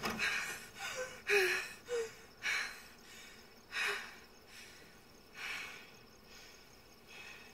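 A girl's heavy breathing and gasps, about six sharp breaths that come further apart and grow fainter.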